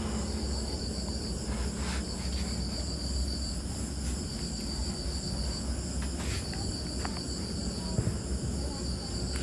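A cloth wiping a whiteboard in soft rubbing strokes, over a steady high chirring of insects and a low hum.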